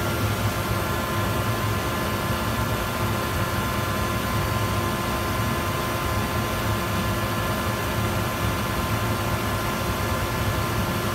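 Hayward pool heater running steadily just after firing up, a constant machine noise with a low hum and a few steady tones and no knocks. There is no banging or clanging, which is taken to mean the repair of its defective bypass has fixed the noise.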